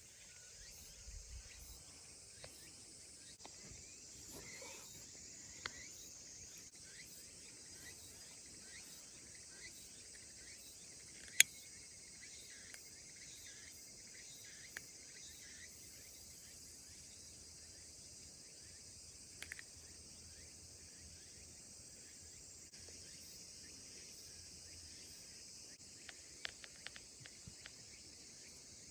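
Insects chirring in a steady, faint, high-pitched chorus. A few sharp clicks cut through it: one loud click about eleven seconds in, and a quick cluster near the end.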